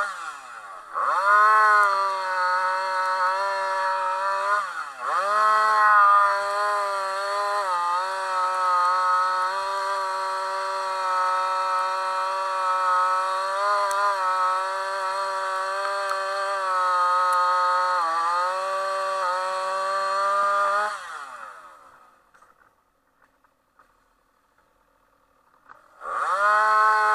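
Chainsaw running at high revs, cutting through layered roof shingles and sheathing. Its pitch dips sharply and recovers about one and five seconds in as the saw bogs in the cut. It fades out a few seconds before the end, then revs back up with a rising pitch for another cut.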